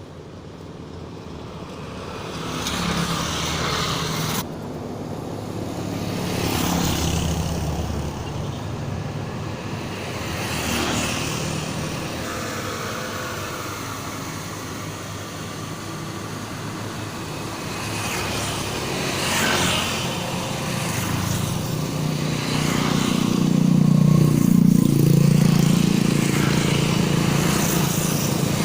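Road traffic: several vehicles passing one after another, each swelling and fading with a dip in pitch, the loudest about three quarters of the way through, over a steady low engine hum.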